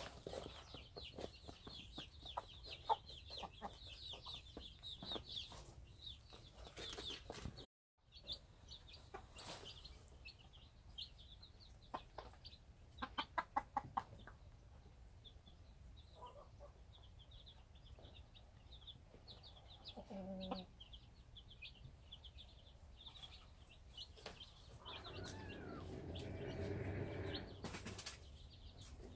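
Cheonggye chicks peeping in a steady, high, rapid chorus, with a hen clucking low now and then and a longer, louder hen call near the end. A quick run of sharp taps comes about halfway through.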